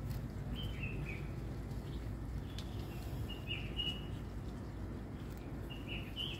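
A small bird chirping in short high notes, in a few brief groups, over a steady low outdoor rumble.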